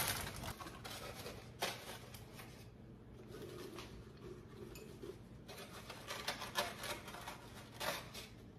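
Light clicks and crinkles of a thin plastic clamshell cookie container being handled while cookies are moved into a glass jar, with a brief run of rapid clicking in the second half.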